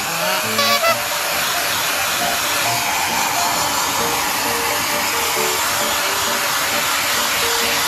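Hair dryer blowing, a steady continuous whoosh, under a simple background music melody. A brief pitched sound comes about half a second in.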